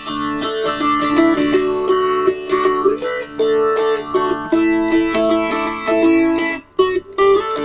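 Five-string all-cherry Appalachian mountain dulcimer strummed, the melody fretted in a quick run of notes over a steady low drone. The playing breaks off for a moment near the end and then picks up again.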